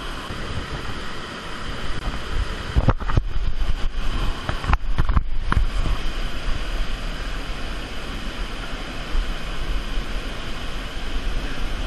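Underground stream cascading down a cave shaft, a steady rush of water. A few sharp knocks, as if against the camera, about three and five seconds in.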